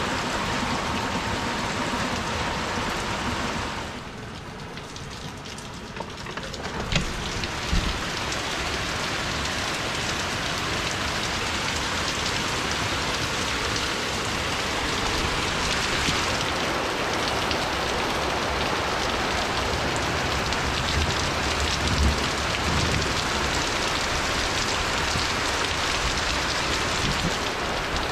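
Steady rain falling, a dense hiss of drops. It briefly quietens about four seconds in, and a couple of sharp knocks come shortly after.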